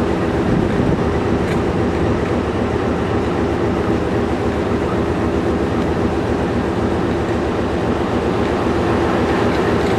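DXB-class diesel-electric locomotive standing at idle, a steady drone with a constant hum that does not change.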